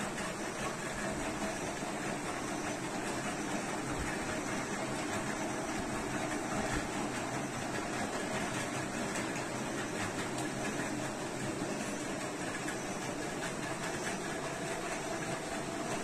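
Steady room noise, an even hiss with a faint constant hum, that runs without change.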